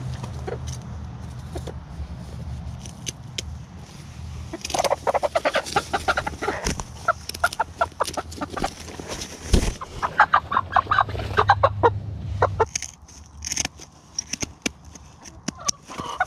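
Chickens clucking in a fast run of short notes from about four and a half seconds in until about twelve seconds, while a hen's wing feathers are clipped with scissors. Sharp clicks of the scissors cutting feathers are scattered through it.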